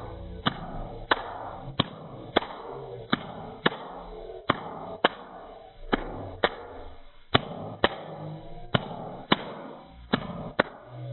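Stomach gurgling and rumbling, with sharp clicks or taps that stand out above it and come at a steady pace, often in pairs, about every half second to second.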